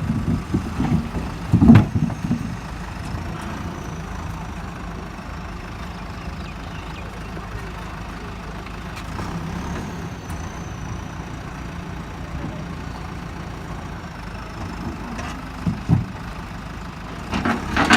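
Diesel engine of a JCB backhoe loader running steadily at low revs. A loud knock comes about two seconds in and a smaller one near the end.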